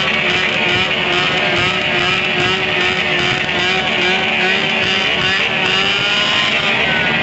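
Several motorcycle engines revving hard together, held at high revs in a loud, steady, unbroken wall of sound.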